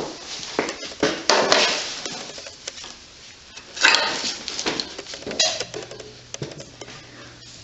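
Metal engine parts and hand tools clinking and scraping in irregular bursts while a small engine's cover is worked loose during teardown.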